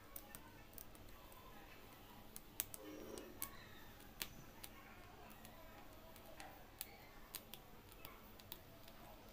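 Faint, irregular sharp ticks of an aari hook needle piercing fabric stretched taut on an embroidery frame while beads are stitched down.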